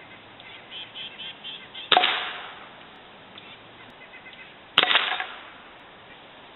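Gamo Big Cat 1200 break-barrel spring-piston air rifle fired twice, about three seconds apart, each shot a sharp crack with a short ringing tail. Faint short chirping calls come just before the first shot.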